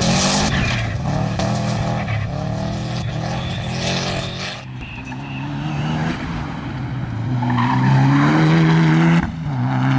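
Rally car engines revving hard as the cars are driven across a dirt and grass stage, the pitch climbing and dropping with throttle and gear changes, over the noise of tyres on loose dirt. The sound changes abruptly about halfway through and again near the end as the footage cuts between cars.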